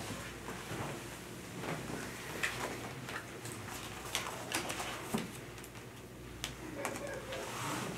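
Handling noises at a table: scattered light taps, clicks and rustles as a paper folder is opened and handled.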